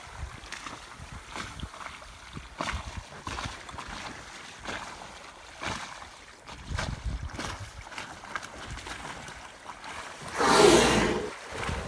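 Water slapping and sloshing against a small yacht's hull. About ten seconds in comes one loud whoosh lasting about a second, a humpback whale blowing close beside the boat.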